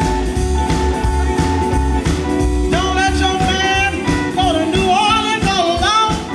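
Live blues band playing, with electric guitars over a steady bass line; a woman's voice comes in singing about three seconds in, with long, wavering held notes.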